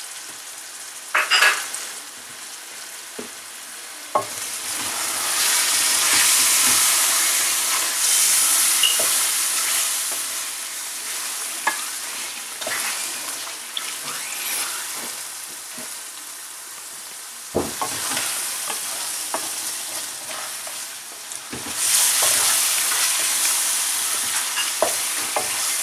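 Lamb, yogurt and green chillies sizzling in hot oil in a metal karahi while being stirred with a wooden spatula, with occasional knocks of the spatula against the pan. The sizzle swells about five seconds in and again near the end.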